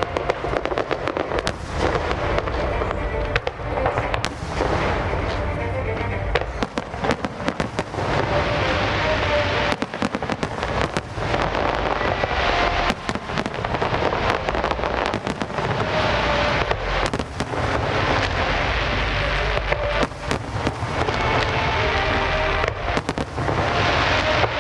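Fireworks display going off continuously: a dense run of bangs and crackling shell bursts, one after another.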